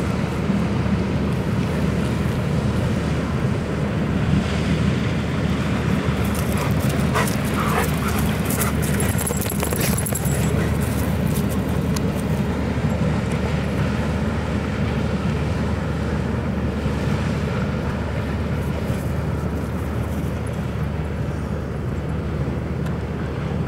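Diesel engine of a passing inland motor cargo ship running with a steady low drone, over a hiss of water wash.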